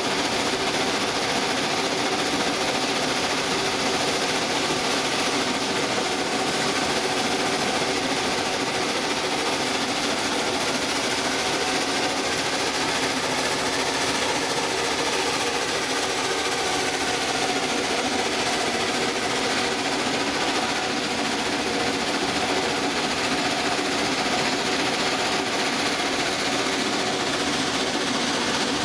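Steam tank locomotive running steadily along the line: a continuous mechanical clatter of running gear and wheels on rail, with a hiss of steam.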